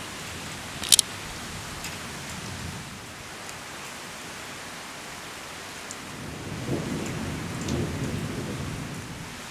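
Steady rain falling during a thunderstorm, with a single sharp tick about a second in. Low thunder rumbles in over the second half.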